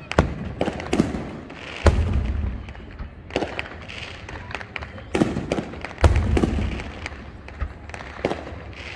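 Aerial fireworks display: shell bursts banging one after another, about every second, with smaller sharp pops in between. The two loudest bangs, about two and six seconds in, are followed by a low rolling rumble.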